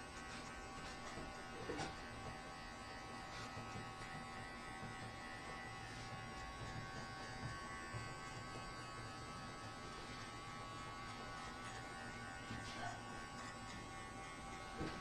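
Electric hair clipper running with a steady buzz while cutting the hair at the side of the head.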